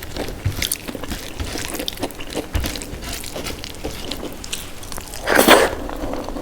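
Close-up eating sounds of dal and rice: wet smacking and chewing with small clicks throughout, and one louder wet sound about five and a half seconds in.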